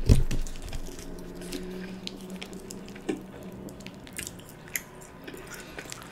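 Sour cream squeezed out of a small plastic packet onto a piece of quesadilla close to the microphone, heard as scattered small wet squishes and clicks. It opens with a low thump, and a soft steady hum runs through the first couple of seconds.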